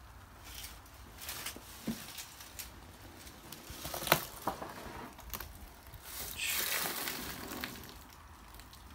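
Footsteps crunching and rustling over debris on a cluttered floor, with a sharp knock about four seconds in and a longer rustle near the end.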